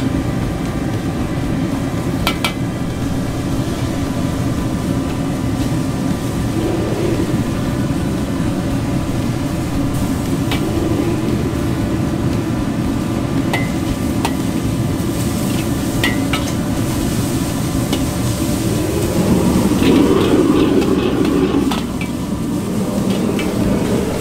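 Gas wok burner running with a steady low rushing noise under egg noodles frying in a carbon-steel wok, with a few sharp clinks of a metal ladle against the wok. A louder frying sizzle swells about twenty seconds in.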